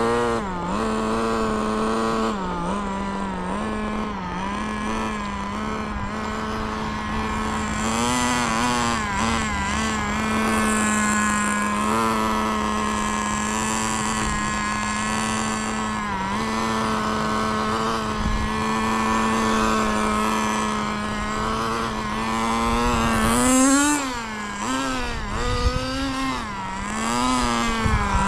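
Kyosho FW06 1/10 nitro RC touring car's small glow engine running as the car drives. Its pitch holds fairly steady for long stretches and swings up and down several times with the throttle near the end.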